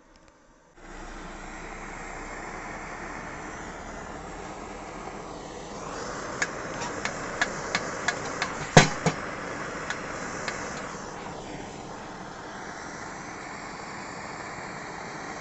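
Primus Rekord-1 kerosene pressure stove burning at full flame, its burner giving a steady rushing noise that starts abruptly about a second in. About halfway through, a quick run of clicks ends in one sharper knock.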